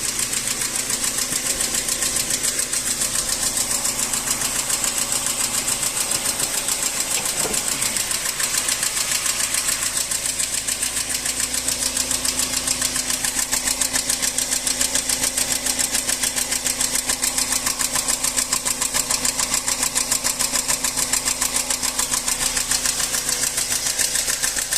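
Nissan engine idling with a steady, rapid metallic ticking, which the mechanic takes for valve knock from cylinders 2 and 3 and means to cure with a valve clearance adjustment.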